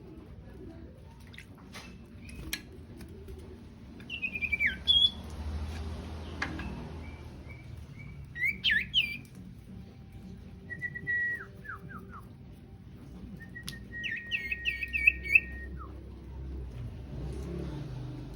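Sirtu songbird calling in short, clear whistled phrases separated by pauses: a falling note about four seconds in, sweeping notes around halfway, a short run of dropping notes, then a quick repeated phrase near the end.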